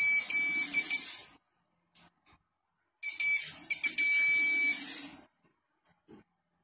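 Buzzer of a homemade Arduino-controlled automatic tap beeping, high-pitched and steady in short pulses, in two spells: about a second at the start and about two seconds from three seconds in. It sounds when the ultrasonic sensor detects a hand and the relay opens the solenoid valve, signalling that the tap is working correctly; water runs from the tap with each spell.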